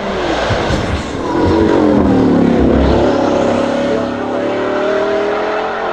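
Bugatti Bolide's 8.0-litre quad-turbo W16 engine under power as the car drives past. The engine note drops in pitch as it goes by and is loudest two to three seconds in, then holds steady as the car pulls away.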